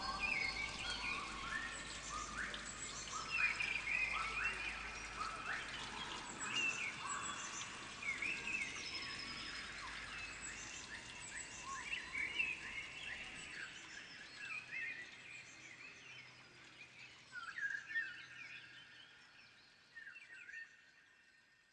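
Birdsong, many short rising and falling chirps and trills overlapping, slowly fading out. A low drone sits beneath them for the first few seconds.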